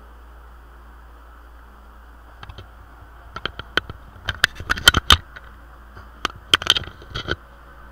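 A burst of sharp clicks and knocks from objects being handled on a desk close to the webcam's microphone, starting about two and a half seconds in and stopping shortly before the end. Underneath runs a steady low hum.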